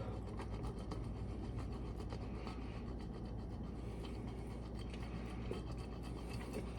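Aged cheddar cheese stick being rubbed across a cheese grater: a steady, soft scraping with small irregular ticks.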